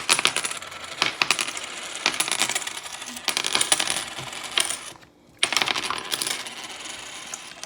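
Checkers pieces clicking and clattering as they are handled and set out for a game: many quick, sharp clicks, with a short break about five seconds in.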